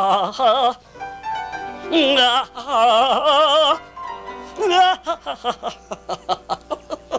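A singing voice in a mock-operatic style, high and held, with a wide wobbling vibrato. It ends in a quick run of short, separate notes.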